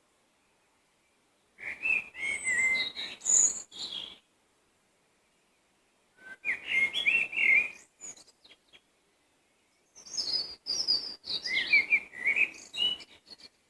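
A songbird singing three separate phrases of quick, varied whistled notes, each about two to three seconds long, with pauses of a few seconds between them.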